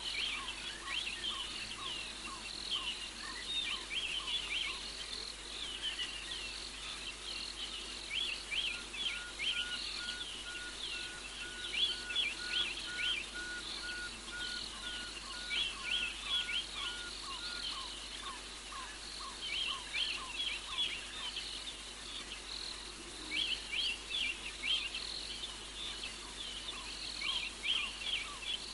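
Night chorus of frogs and insects at the water: repeated bouts of short, high, downward-sweeping calls over lower chirps, with a steady series of short pips at about two a second for several seconds in the middle.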